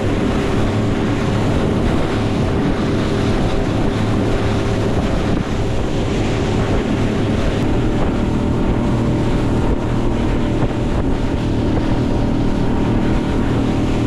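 The outboard motor of a Highfield Sport 390 inflatable boat running steadily under way, with water rushing and splashing along the hull and wind buffeting the microphone.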